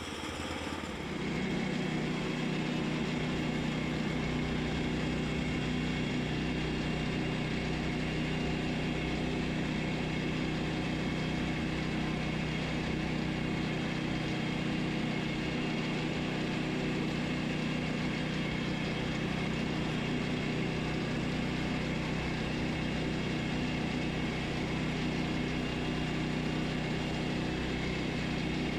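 Woodland Mills HM122 portable bandsaw mill running steadily under its gas engine while the band blade cuts along a cant to rip off a batten strip.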